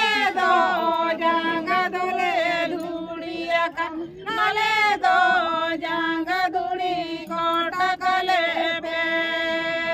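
A group of women singing together without words spoken, their voices bending between notes and holding long sustained notes, especially near the end.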